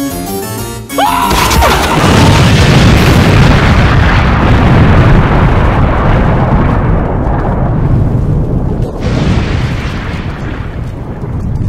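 Keyboard music breaks off about a second in. A short whistling glide follows, then a loud explosion sound effect whose rumble fades slowly and swells again briefly near the end.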